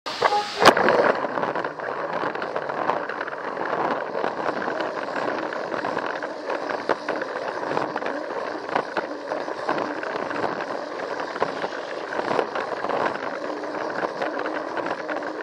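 Plarail toy train's small battery motor and gears running steadily, its wheels rattling along the blue plastic track with many small clicks, heard from a camera riding on the train. A single sharp click about half a second in.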